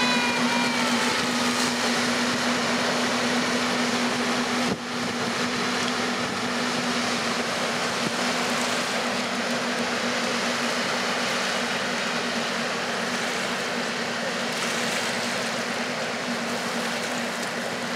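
Rushing churn of water from the Elbe Princesse's two stern paddle wheels, with a steady low drone from the ship's machinery underneath. A short falling call sounds right at the start.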